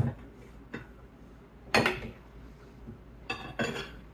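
Stacked ceramic bowls clinking and knocking against each other and the shelf as they are set down and shifted: several short clinks, the loudest about two seconds in.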